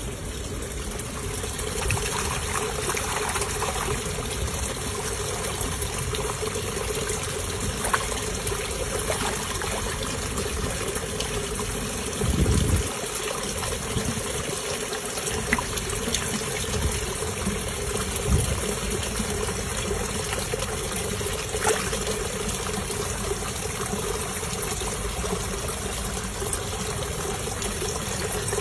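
Steady trickling, running water in a fish pond, with a few brief louder splashes and knocks.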